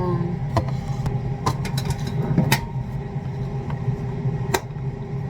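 Air fryer running with a steady fan hum while it cooks chicken wings. A few short knocks and clicks of things being handled come through over it.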